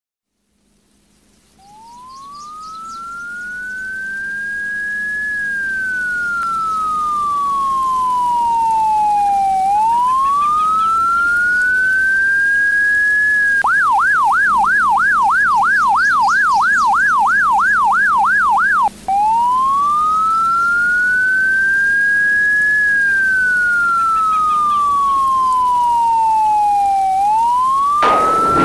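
Electronic siren fading in and wailing slowly up and down. For about five seconds in the middle it switches to a fast yelp, then returns to the slow wail. A loud rush of noise comes in at the very end.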